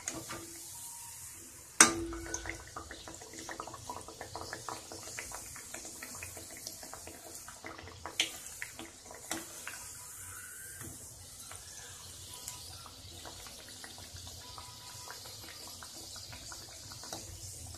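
Nimki dough deep-frying in hot oil in a steel kadhai: a steady sizzle with many small crackles. A sharp metal clink about two seconds in as the slotted spoon knocks the kadhai, with lighter clinks near the middle.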